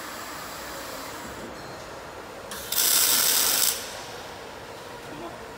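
Automatic pipe flange welding machine running with a steady mechanical noise. About three seconds in, a loud hiss cuts in for about a second and then stops.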